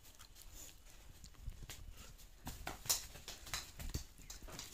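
Bare feet stepping and shuffling on packed dirt during sparring footwork: scattered soft taps and thuds, a little busier in the second half.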